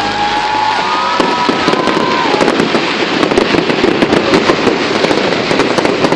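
Fireworks display: a dense, continuous crackle of many small rapid bursts. A few high whistling tones glide over it in the first two seconds.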